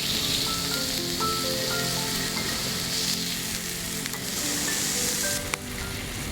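Food sizzling as it fries, a steady hiss, under soft melodic background music; the sizzle cuts off with a click about five and a half seconds in.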